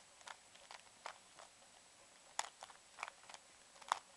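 Rubik's Cube being twisted by hand: a quick, irregular string of light plastic clicks and clacks as its layers turn, the sharpest click near the end.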